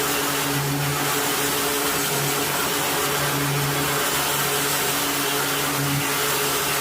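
An electric motor running steadily under a loud, even hiss, its hum swelling and fading every second or two.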